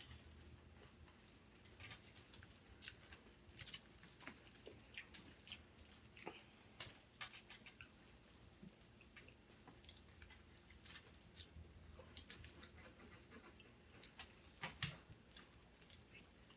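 Faint, irregular clicks and crackles of someone chewing food, with a louder cluster of clicks near the end.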